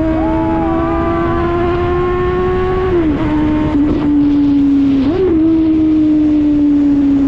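Suzuki GSX-S750's inline-four engine, loud through a JBK slip-on exhaust with the baffle removed, heard while riding. The note climbs slowly, dips about three seconds in, gives a short rise near five seconds, then slowly falls away.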